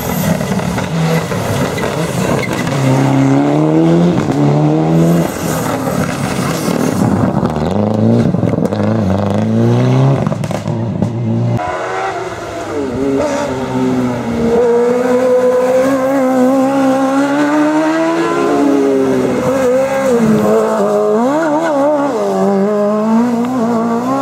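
Competition cars on a hillclimb slalom, one after another, engines revving hard. Their pitch climbs and drops in steps as they change gear and lift for the cone chicane. About halfway through, a second car's engine takes over.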